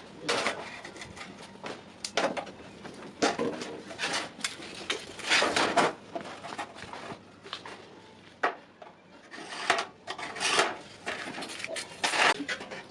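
Iron pieces being handled, with irregular metal scraping and clinking strokes, some short and some lasting up to about a second.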